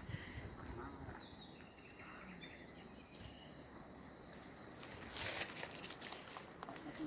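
Steady high-pitched insect trill, with a brief rustle or scuff about five seconds in.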